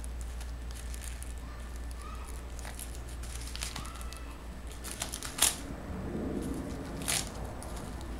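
Paper crinkling and tearing as a small dog chews and pulls at a sheet of it, with faint scattered crackles and two sharp, louder rips about five and seven seconds in.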